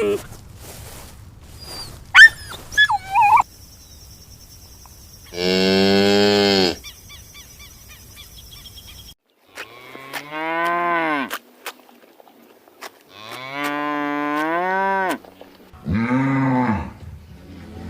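Cattle mooing: four long, drawn-out moos a few seconds apart, the first about five seconds in. A short, high-pitched call comes before them, about two seconds in.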